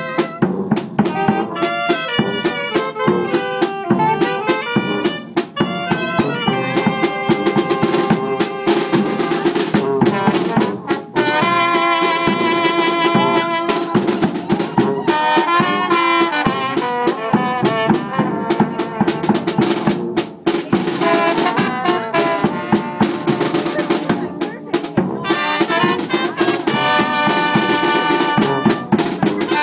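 Tamborazo band playing live: trumpets and saxophones play the melody over a tambora bass drum and snare drum keeping a steady beat.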